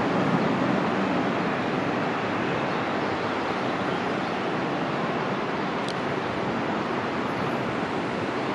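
Boeing 767-300 freighter's jet engines at climb power after takeoff: a steady rushing jet noise, slowly fading as the aircraft climbs away.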